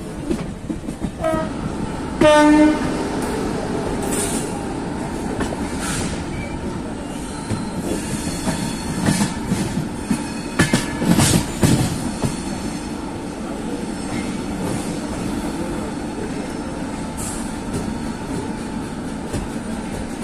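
Indian express passenger train running steadily, with a short, loud horn blast about two seconds in. A run of sharp clatters from the wheels comes around ten to twelve seconds in.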